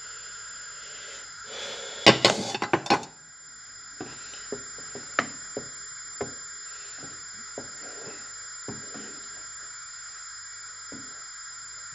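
Wooden spoon stirring cream in a saucepan, knocking and scraping lightly against the pan at irregular intervals. A louder clatter of kitchenware about two seconds in, over a faint steady hum.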